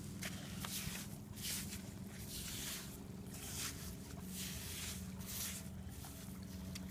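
A hand scraping and digging through wet beach sand: a series of soft, uneven scrapes and squishes, over a steady low hum.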